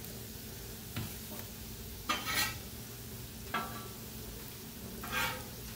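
Plantain slices sizzling in oil on a steel flat-top griddle. A metal spatula scrapes across the griddle surface several times as slices are pressed flat and moved.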